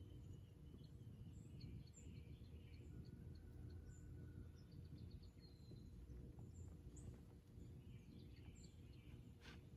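Faint birds chirping and calling here and there over a low steady rumble, with a short rasping call near the end.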